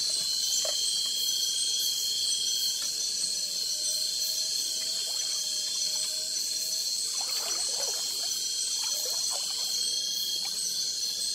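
Steady night chorus of tropical forest insects and frogs: continuous high-pitched buzzing and trilling.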